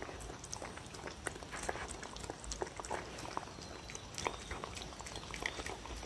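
Dog eating a wet mash of pollack, egg yolk and radish soup from a wooden bowl: irregular wet smacking, lapping and chewing clicks.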